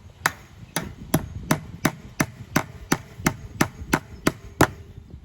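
Hammer driving fence staples into a wooden fence post: about a dozen sharp, evenly paced blows, roughly three a second, that stop near the end.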